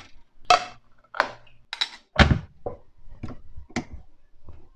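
Crockery and a glass-fronted dish cabinet being handled: an irregular string of about a dozen knocks and clinks, with a heavier thump a little after two seconds in.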